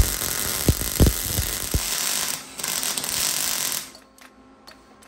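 Wire-feed welder arc crackling steadily while welding a nut onto the steel edge of a lift table. The crackle breaks off about two and a half seconds in, runs again for about a second, then stops, leaving a few faint clicks.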